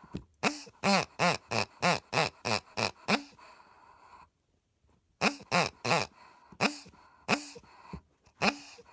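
Rubber pig dog toy oinking as it is squeezed: quick short honking grunts, each rising then falling in pitch, about three a second. They come in two runs with a pause of about two seconds between, and one more grunt near the end.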